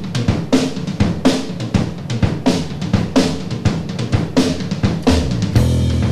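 A rock drum kit playing a steady beat: kick drum, snare hits and cymbals, with strong strokes about every two-thirds of a second. A sustained low bass guitar note comes in about five seconds in, as the band starts up.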